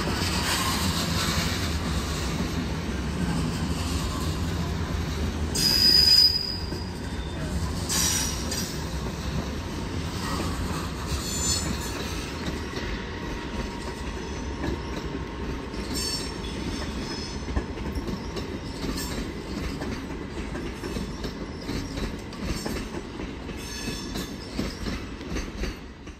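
A train rolling over station tracks: a steady low rumble with brief high-pitched wheel squeals and clacks over the rail joints. The loudest squeal comes about six seconds in.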